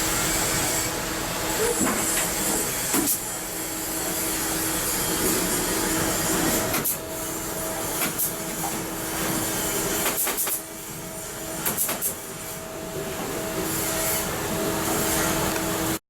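Steady industrial noise of shipyard fitting-out work: a dense hiss with a low, steady hum, broken by scattered sharp metallic knocks and clicks.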